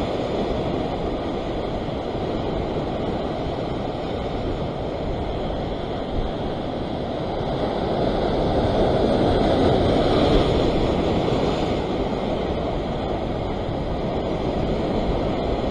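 Ocean surf washing over and around a rock ledge, mixed with wind on the microphone. The wash swells louder a little past halfway, then eases.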